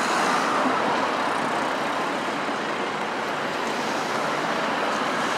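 Green Volvo city buses driving along a street: a steady wash of traffic noise from tyres and engines, a little louder in the first second.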